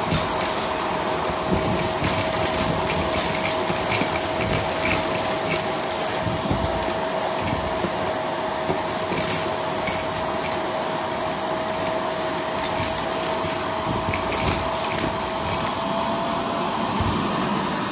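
Vacuum cleaner running with its crevice tool pushed into carpet, sucking up sand, lint and glitter: a steady motor rush with a constant whistle, broken by irregular crackles of grit and small debris rattling up the nozzle.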